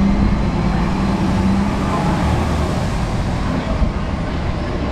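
Street traffic: a steady low rumble of road vehicles, with an engine hum in the first two seconds.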